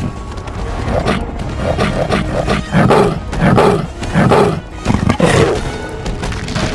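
A run of big-cat roars and growls, about eight in quick succession, over music.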